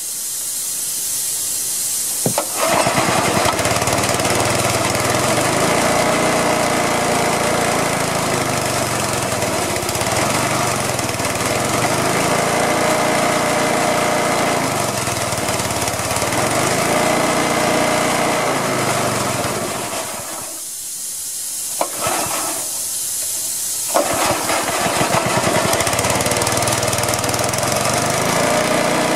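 Small Honda gasoline engine driving the air compressor pump. It catches a couple of seconds in and runs with its speed swinging up and down every few seconds, not yet warm enough to settle to an idle. It dies about twenty seconds in and catches again a few seconds later, while a high hiss of escaping air runs underneath.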